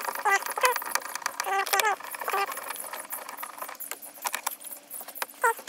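Hand tools clicking and rattling while bolts holding the car's radio unit are removed. Short, high, curving squeaky chirps come in several times over the clicking.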